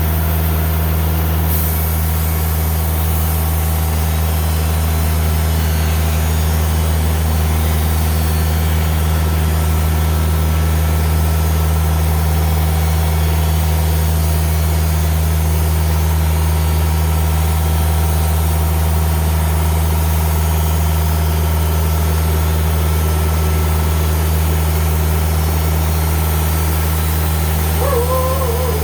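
Diesel engine of a Timberking 2000 sawmill idling steadily, with a constant low hum. A dog starts barking near the end.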